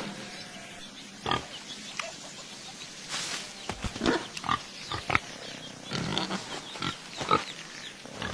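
An animal making a string of short, irregular calls, some with a brief pitch and several close together in the second half.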